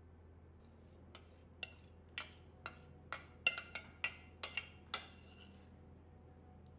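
A metal spoon clinking and scraping against the rim of a stainless steel saucepan as béchamel sauce is pushed out of it: about a dozen quick, bright clinks, irregular in pace, starting about a second in and stopping before the end.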